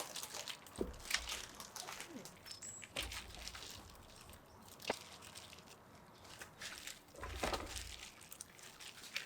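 Scattered small clicks and knocks with some crinkling, and a couple of dull thumps about three seconds and seven and a half seconds in.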